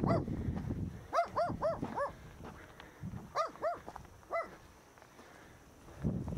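Dog barking in quick runs: a bark at the start, four rapid barks a little after a second in, then three more a couple of seconds later.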